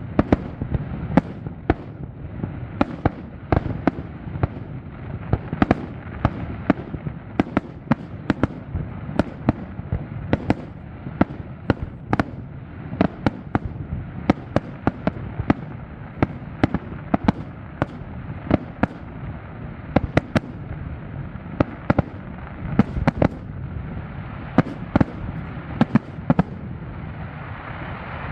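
Fireworks display: a continuous string of sharp bangs from shells bursting, several a second, over a steady low rumble of further bursts.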